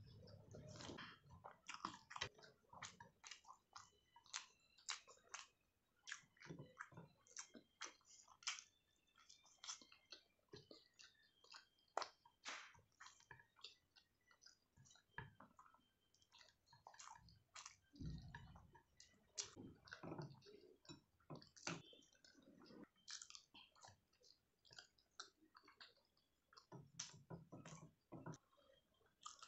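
A person chewing food close to the microphone: a steady run of short, wet mouth clicks and smacks, with a few low, muffled thuds at the start, about two-thirds of the way through and near the end.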